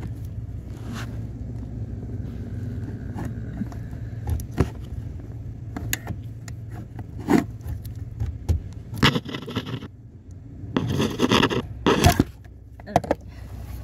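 Flathead screwdriver prying and scraping at the plastic retaining clip of a Porsche Cayenne's cabin filter cover: scattered clicks and sharp knocks, then two longer scraping rustles in the second half. A steady low hum runs underneath.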